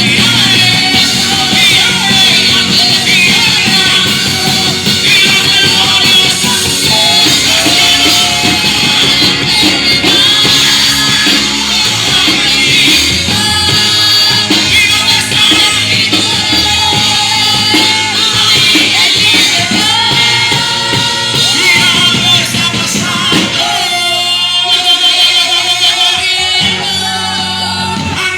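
Live worship band music: drum kit, amplified instruments and singing, loud and steady.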